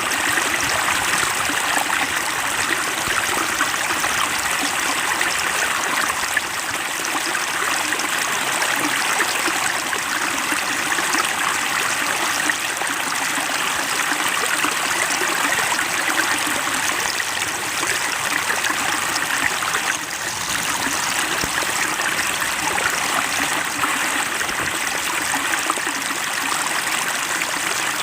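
Water flowing in a small stream, a steady splashing rush with fine trickling detail.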